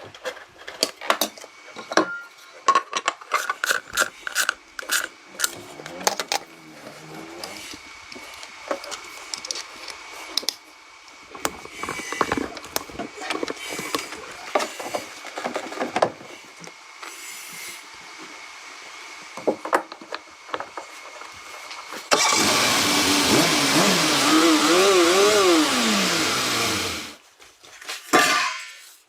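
Scattered knocks and clicks, then a motor runs loudly for about five seconds, its pitch rising and then falling away as it winds down.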